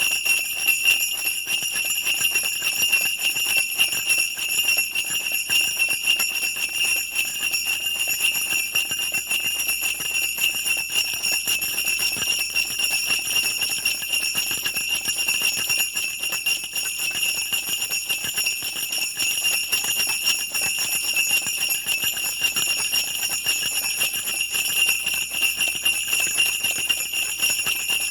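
Sleigh bells shaken continuously in a dense, steady jingle, bright and ringing, with no pauses.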